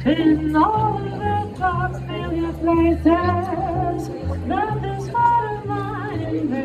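A woman singing into a microphone over a plucked upright double bass, whose low notes change about every half second.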